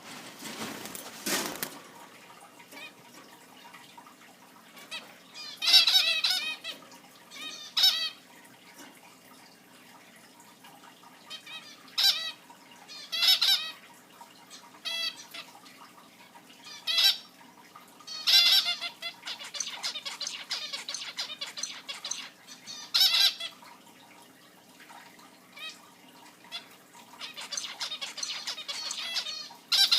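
Several zebra finches calling: short, nasal, beeping chirps in loud bursts every few seconds, with stretches of quicker chattering between them.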